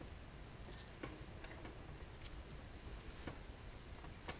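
A handful of faint metal clicks about a second apart as a hand thread tap in a T-handle is worked to cut threads in the puller holes of a small engine's flywheel.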